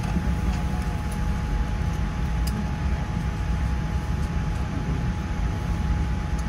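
Steady low rumble of a Boeing 787-9 airliner cabin on the ground before takeoff, with a faint steady whine over it.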